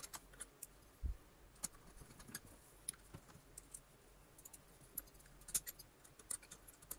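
Faint, scattered clicks and ticks of small steel screws and a screwdriver being handled and driven in as the front bearing bracket is screwed down on a vacuum cleaner motor, with one soft bump about a second in.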